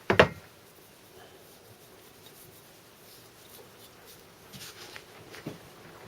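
A metal part or tool knocking and clattering on a workbench at the start, then faint handling sounds and a small knock near the end as engine parts are worked on.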